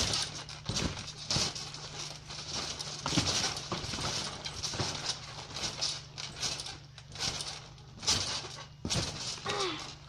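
Repeated thuds of children bouncing and landing on a trampoline mat, several irregularly spaced impacts over a rustling background.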